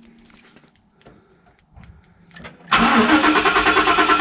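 2014 Ford Raptor's starter cranking the engine, with a fast, even rhythm, for about a second and a half near the end, after a few faint clicks. The fuel pump fuse 27 has just been replaced.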